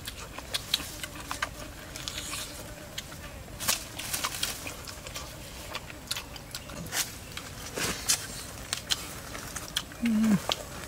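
Close-up eating sounds of grilled pig ribs: biting, tearing meat off the bone and wet chewing, with many short smacks and clicks. About ten seconds in comes a short hummed "mm" that falls in pitch.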